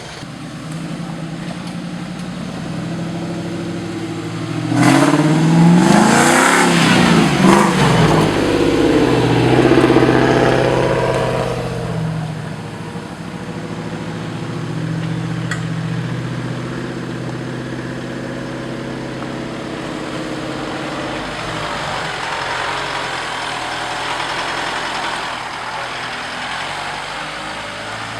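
Off-road 4x4 vehicle's engine running, revved hard about five seconds in with the pitch rising and falling for several seconds, then settling back to a steadier run.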